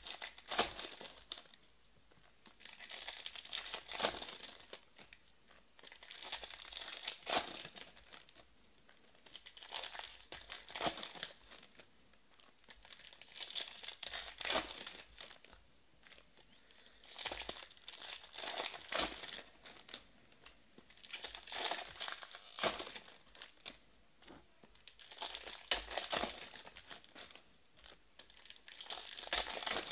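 Foil trading-card packs being torn open and crinkled by hand, one after another, in about nine bursts of crackling a few seconds apart.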